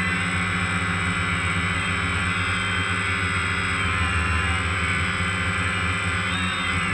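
Camera drone's motors and propellers running steadily in flight, a constant low hum under a high whine, heard from the aircraft itself.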